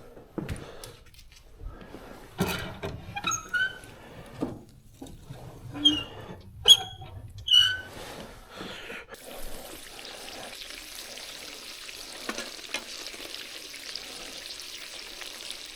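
Food being cooked in a small camp fryer: a few knocks and short squeaks as the food and utensils are handled, then a steady sizzle sets in about nine seconds in as the food starts frying.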